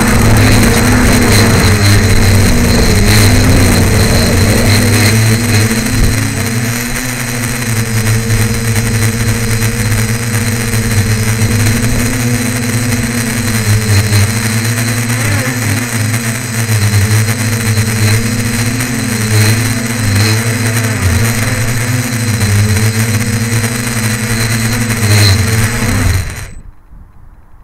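Tricopter's electric motors and propellers, heard from its onboard camera, running with a buzzing whine whose pitch wavers up and down with throttle changes. The sound cuts off abruptly near the end as the motors stop.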